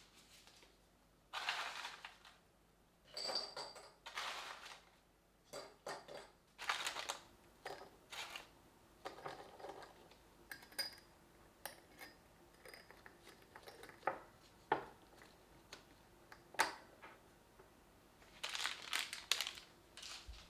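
Household objects being handled at close range: irregular knocks, clinks and short rustling bursts, with louder rustling about a second and a half in, around three to four seconds in, and again near the end.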